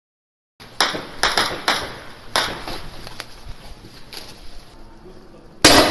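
A series of about six sharp bangs, each with a short ringing tail, spaced irregularly over several seconds, then a much louder bang near the end.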